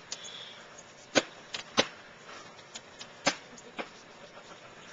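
Glaze ice cracking and crunching in a handful of sharp, irregular snaps, the loudest about a second in, just before two seconds and past three seconds.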